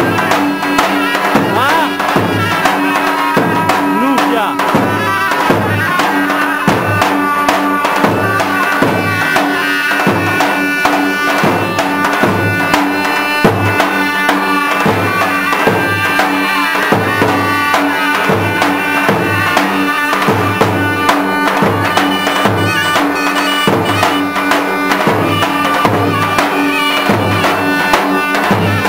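Albanian folk dance music: lodra drums beat a steady rhythm under a reedy wind instrument playing the melody.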